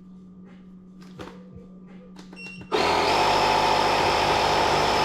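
Small electric air compressor switching on about two and a half seconds in and running steadily with a low pulsing chug, pumping up a newly mounted 10 x 2.5 inch electric-scooter tire. A few faint clicks come before it starts.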